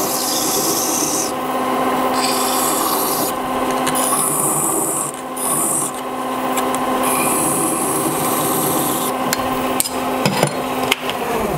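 Hand file deburring the edges of a brass workpiece spinning in a metal lathe: several separate filing strokes over the steady hum of the running lathe. The filing stops about nine seconds in, followed by a few light clicks.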